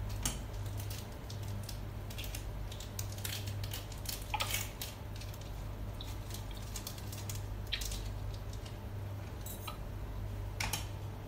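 Kitchen utensils clinking and scraping now and then against a frying pan and a plate of noodles, a few sharp clicks spread over several seconds, over a steady low hum.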